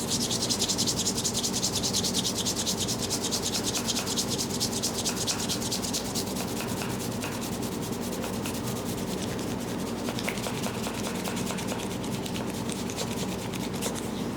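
Brisk, rhythmic rubbing during a head massage, many quick even strokes a second, strongest at first and easing to a lighter rub about six seconds in. A steady low hum runs underneath.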